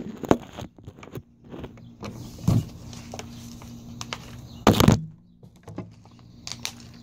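Scattered knocks and thuds from a phone and a plastic water bottle being handled, with one louder thud a little before five seconds in.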